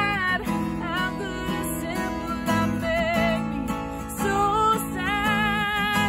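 A woman singing a pop song solo, holding long notes with vibrato, while strumming chords on a black Takamine acoustic guitar.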